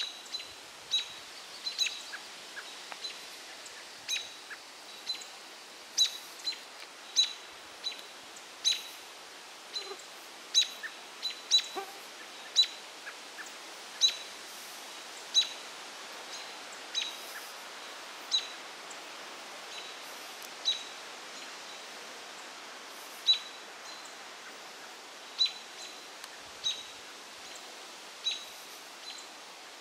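American robins giving short, sharp alarm calls, about one a second at uneven spacing, at a great gray owl perched in their territory.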